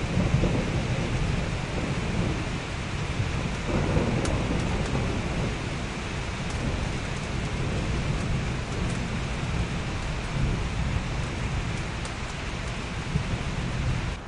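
Steady summer rain, an even hiss, over a deep low rumble that swells near the start and again about four seconds in.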